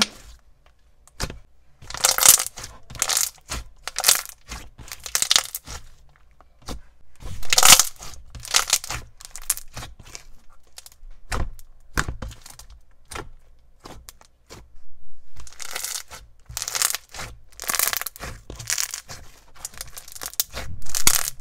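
Thick, glossy white slime being squeezed, pressed and folded by hand, giving off irregular sticky crackles, clicks and squelches in bursts with short quieter pauses between.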